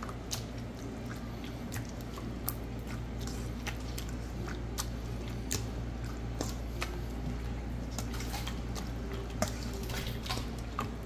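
Wire potato masher mashing tomatoes, onion and garlic in a stainless steel bowl for tomato choka: wet squishing with frequent light clicks and taps of metal on metal. A steady low hum runs underneath.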